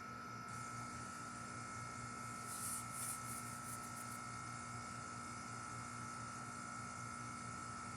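Ruud Achiever Endeavor line RA14AZ air-conditioner condensing unit, with a scroll compressor, running steadily in cold weather: a steady hum with a faint high whine, the running that the owner fears can damage the compressor. A brief hiss comes about two and a half seconds in.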